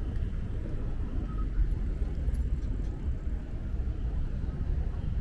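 Low, steady rumble of road traffic on a city street.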